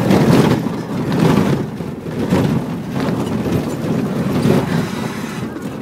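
Cabin noise inside a Toyota Land Cruiser driving off-road: a loud, uneven rumble of engine, tyres and body that swells and eases every second or so.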